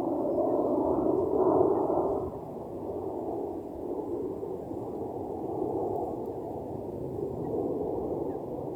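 Wind buffeting the microphone: a low rushing noise that swells and eases, loudest in the first two seconds. No bird calls are heard.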